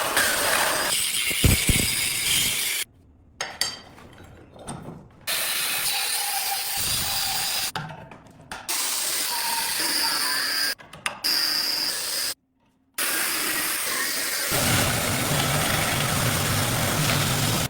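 Power tool working steel in several short edited clips, a steady grinding noise with a thin whine, cut off abruptly to silence several times.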